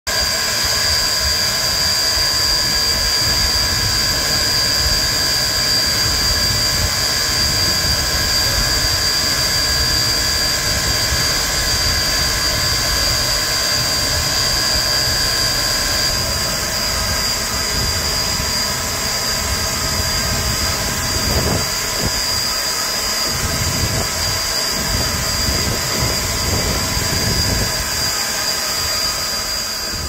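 Standing steam locomotive, Pennsylvania Railroad 0-6-0 switcher No. 643, hissing steadily with a high, steady whine over a low, uneven rumble. Some of the whine's tones drop away about halfway through, and the rumble swells in pulses near the end.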